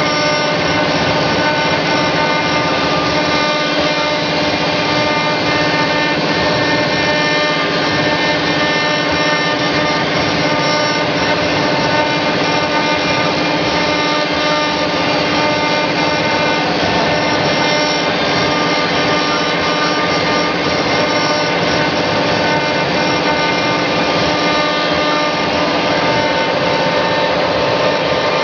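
OMNI 1325 CNC router spindle running steadily with a whine while its bit carves a 3D relief into wood, the hiss of the cut mixed in.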